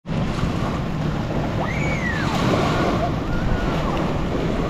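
Steady rush of wind on the microphone. A brief high call rises and falls about two seconds in, with a fainter one about a second later.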